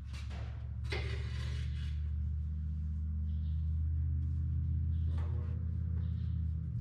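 Steady low hum of a running shop heater, with a short metallic scrape about a second in and a fainter one about five seconds in.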